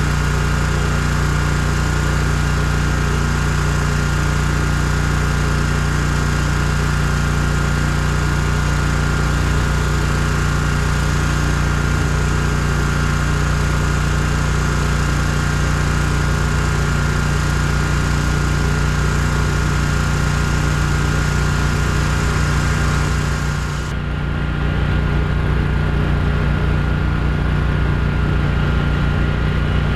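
A small engine running steadily at idle. About 24 s in the sound turns duller, and the level dips briefly.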